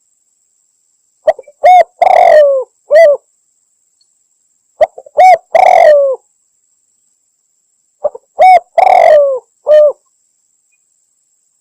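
Spotted dove (tekukur) cooing, from a recorded hunting lure call billed as a female calling males. Three identical phrases come about every three and a half seconds: a couple of quick short notes, one long drawn coo and a short closing note. Dead silence falls between phrases.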